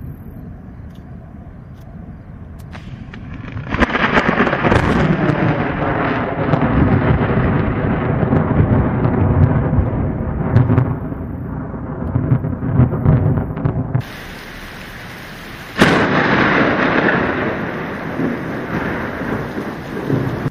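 Thunder during a thunderstorm with rain: a long, loud, low rolling rumble starts suddenly about four seconds in, then after a brief quieter stretch a second sudden roll near the end slowly fades.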